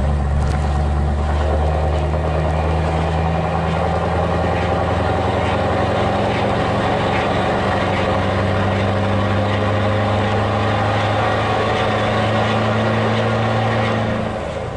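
Scania V8 diesel truck engine heard from inside the cab, running under load as the truck drives along. Its deep note steps up in pitch about nine seconds in, and the sound drops in level near the end.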